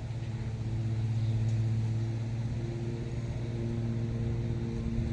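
Steady low hum of an engine running at idle, holding one even pitch and swelling slightly midway.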